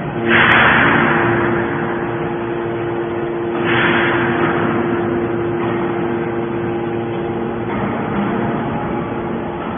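Scrap baler's engine and hydraulic power unit running with a steady drone, with two loud rushing, crunching swells about three seconds apart as the machine works the scrap.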